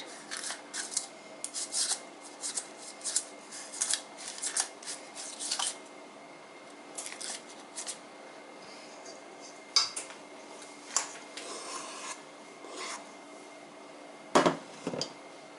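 A spoon scraping and clicking as thick muffin batter is scooped and dropped into paper cups, busy for the first six seconds and then sparser, with one louder knock near the end. A faint steady hum sits underneath.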